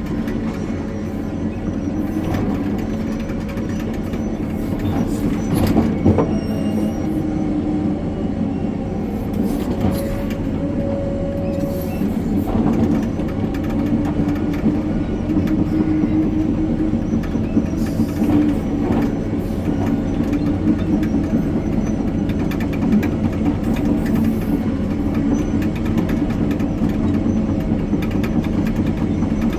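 Hitachi 890 excavator's diesel engine running steadily with scattered mechanical knocks and clanks, the loudest about six seconds in.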